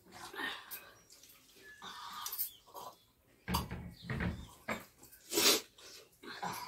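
A family eating by hand from stainless steel plates: irregular clinks and scrapes of the steel plates and tumblers, mixed with wet eating and drinking sounds.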